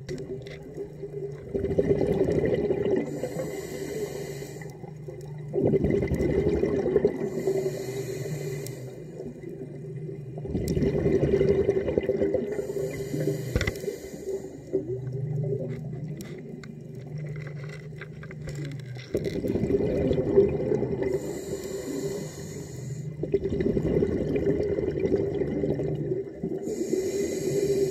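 A diver breathing underwater through a regulator: a low rush of exhaled bubbles, then a short high hiss of inhaling, five breaths about every four to five seconds. A steady low hum runs underneath.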